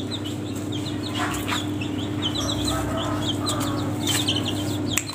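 Young green junglefowl peeping: many short, high chirps repeated several times a second, over a steady low hum.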